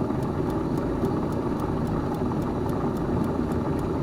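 Small cupola furnace running for an iron pour, its air blower giving a steady low rumble, with faint regular ticking a few times a second.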